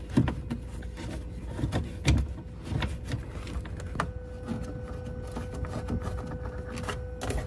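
Hands fitting plastic trim and screws back into a car's front trunk: scattered light clicks and knocks of plastic and fasteners being handled. A faint steady hum sets in about halfway through.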